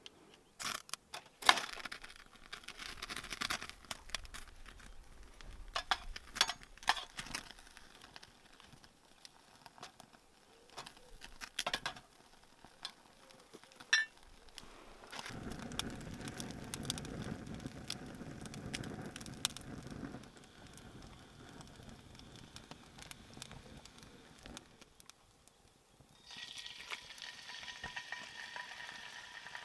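Sharp strikes and scrapes as a homemade fire starter of tumble-dryer lint, Vaseline and sheep's wool is lit, followed by a few seconds of low rushing as it catches. About 26 seconds in, a steady sizzle of frying starts suddenly.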